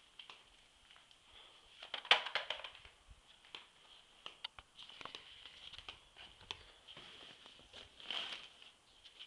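Rustling of a fabric car cover brushing against the camera, loudest in two bursts about two seconds in and near the end, with scattered faint clicks of handling noise.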